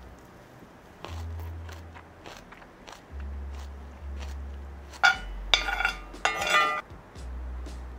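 A person eating ramyeon noodles: soft chewing, then loud slurping of noodles in two or three quick pulls about five to seven seconds in.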